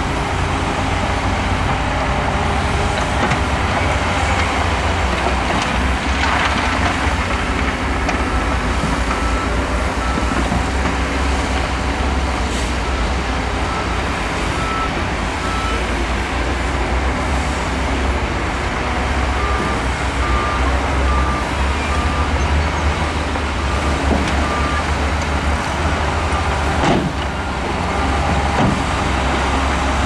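Heavy diesel engines running steadily as a dump truck tips its load of rock and a crawler bulldozer works nearby. A reversing alarm beeps faintly about twice a second in two runs, one around a third of the way in and one past the middle.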